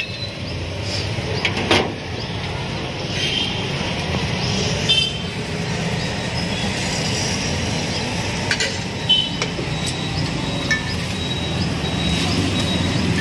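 A metal spatula clinks sharply on a flat iron griddle (tawa) several times while egg cooks with chicken tikka, over a steady hum of street traffic.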